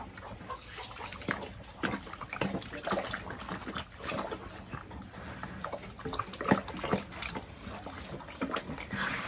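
Pig eating chopped greens: wet, irregular munching and snuffling with many short crunching clicks.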